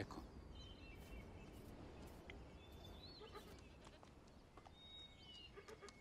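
Near silence: a faint background hush with a few faint, high, short chirps scattered through it.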